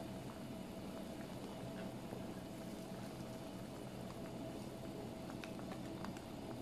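Kimchi soup simmering in a hotpot, with soft bubbling and scattered faint pops of bursting bubbles, over a steady hum.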